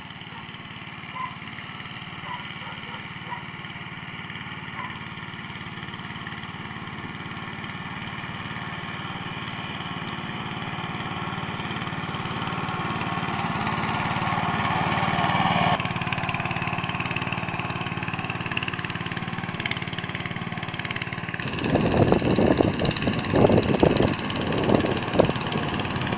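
Motor Sich MB-9E walk-behind tractor engine running steadily under load as it drags a harrow through soft soil, slowly growing louder as it comes closer. From about 21 seconds in it is much louder and more uneven as it passes close by.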